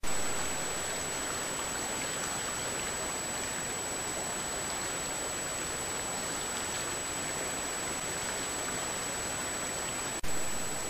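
Steady hiss with a constant thin high-pitched electronic whine, typical of a trail camera's own recording noise; about ten seconds in it drops out for an instant and comes back louder as a new clip starts.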